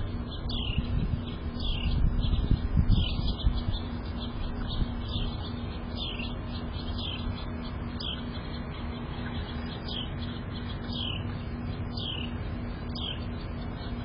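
An off-screen songbird repeats a short downslurred whistle about once a second. A low rumbling noise sits under the first few seconds.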